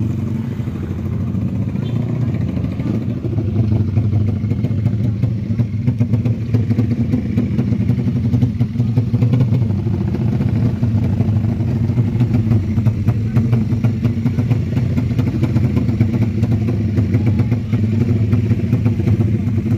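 Drag-race motorcycle engines running at a steady pitch.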